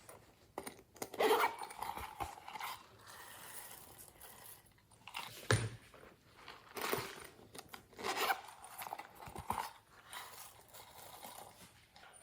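Slime being squished and worked by hand, in irregular bursts of crackly squishing.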